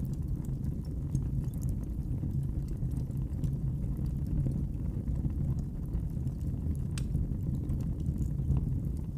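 Wood fire crackling in a fireplace: scattered small sharp pops and snaps over a steady low rumble.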